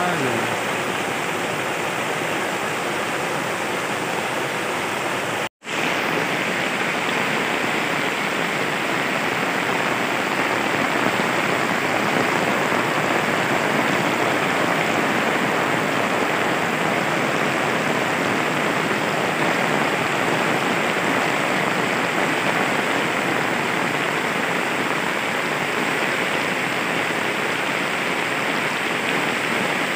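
Heavy rainstorm downpour falling on a rocky river and the surrounding forest, a steady dense hiss mixed with the rushing river. The sound cuts out for a moment about five seconds in.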